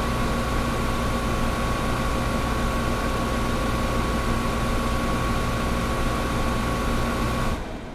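Window air conditioner running with a steady rushing noise and a constant hum. Near the end the hum and much of the noise cut off suddenly, leaving a quieter hiss.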